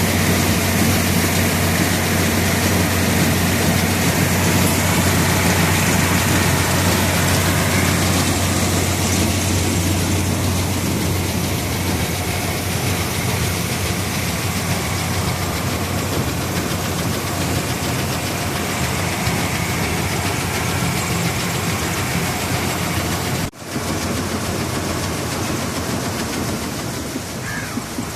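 Rice combine harvester running steadily: a continuous low engine drone under a wide mechanical rush. The sound drops out for a moment a few seconds before the end, then carries on.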